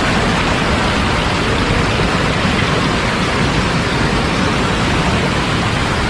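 Waterfall's falling water making a loud, steady rush.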